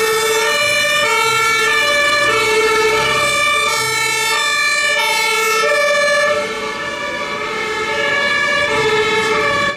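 Two-tone sirens (Martinshorn) of a German fire engine and ambulance on an emergency run, each stepping back and forth between a low and a high note, overlapping each other. They get a little quieter after about six seconds as the vehicles drive off.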